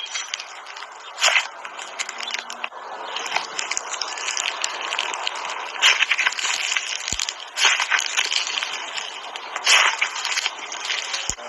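Slime being squeezed and kneaded by hand: steady wet squishing and crackling of air pockets, with a few louder squelching pops along the way.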